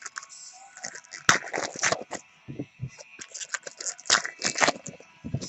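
Trading card packs and cards being handled: an irregular run of sharp crinkles and scrapes from foil wrappers and cards.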